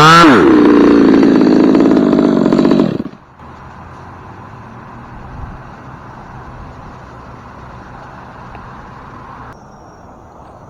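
Chainsaw dropping from a rev to a lower idle, running for about three seconds, then stopping abruptly. After that only a faint steady background remains.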